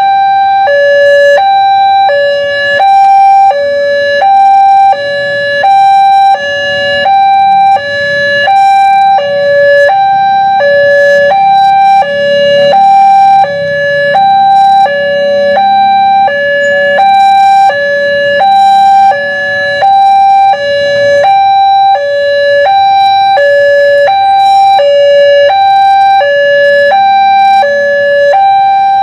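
Railway level-crossing warning alarm sounding continuously. It is an electronic two-tone signal, alternating steadily between a lower and a higher note, that warns of an approaching train while the crossing barriers are down.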